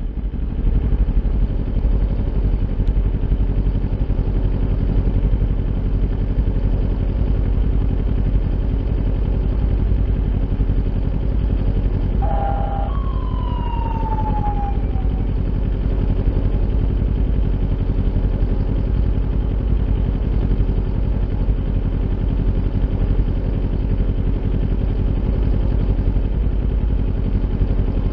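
Kawasaki Ninja 400 parallel-twin engine with an Akrapovic aftermarket exhaust, running at a steady engine speed with no rise or fall in pitch.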